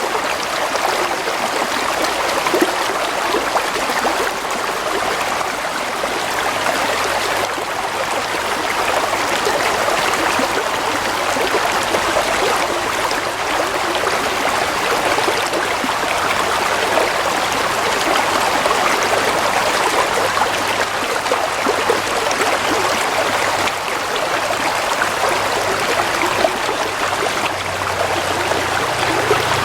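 Gently flowing water running steadily, an even rush with no breaks or sudden splashes.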